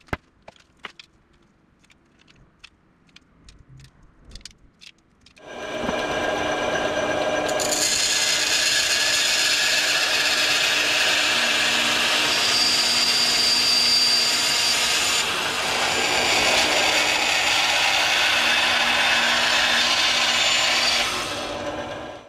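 A few light clicks and taps, then a Ryobi benchtop band saw starts about five seconds in and runs steadily as it cuts through aluminum angle, stopping just before the end.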